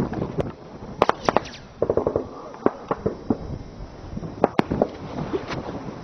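Gunfire: irregular sharp cracks, with a quick cluster of several shots about a second in, then single shots spaced out over the next few seconds.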